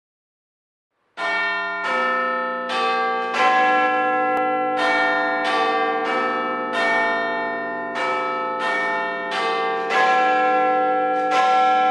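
A peal of church bells starting about a second in, the bells struck one after another about every three-quarters of a second at different pitches, each ringing on into the next.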